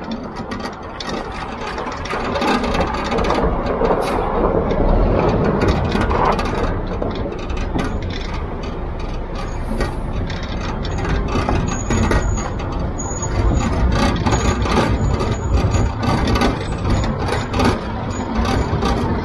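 Concrete mixer truck driving, heard from inside the cab: a steady low engine rumble with frequent knocks and rattles as the truck bounces along.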